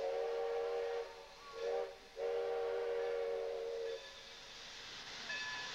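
Steam locomotive whistle blowing three blasts, long, short, then long, followed by a softer hiss of steam.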